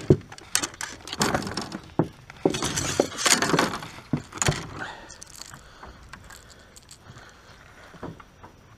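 Fishing tackle being handled in a small boat: lures and a rod clicking, clinking and rattling against a plastic tackle box. The clatter is busy for about the first half, then drops to a few quiet clicks.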